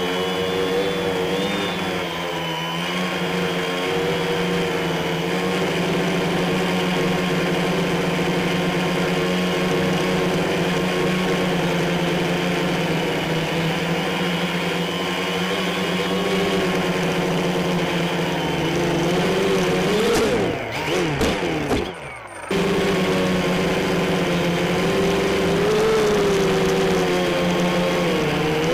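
Quadcopter's brushless motors and propellers humming steadily in flight, the pitch wavering slightly with throttle. About two-thirds in the pitch sweeps up and down and the sound briefly dips before the steady hum returns.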